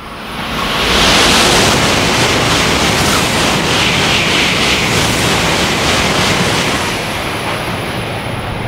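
N700-series Shinkansen passing through a station at high speed without stopping: a loud rush of air and rail noise that swells within about a second, holds for several seconds as the carriages go by, and eases slightly near the end.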